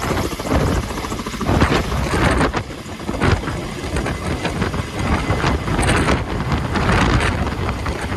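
Kamov Ka-32A helicopter's coaxial rotors and twin turboshaft engines running as it lifts a load on a long line and climbs away, with uneven gusts of rotor downwash buffeting the microphone.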